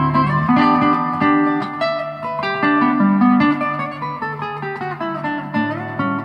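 Solo nylon-string classical guitar, fingerpicked: plucked bass notes under a single-note melody that steps downward through the middle of the passage.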